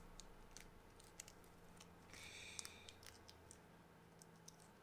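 Near silence, with a few faint clicks and a brief soft rustle about two seconds in: small parts and packaging being handled at a workbench.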